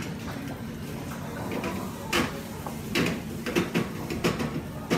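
Wooden spatula knocking and scraping against a steel frying pan while stirring rice. There are about five sharp knocks in the second half over a steady kitchen background noise.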